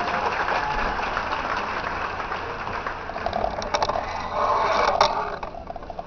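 Audience applauding at the end of a band piece, the clapping dying away near the end.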